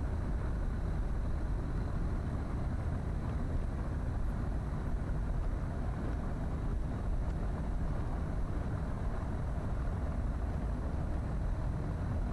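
Steady low rumble of outdoor ambience, even throughout with no distinct events.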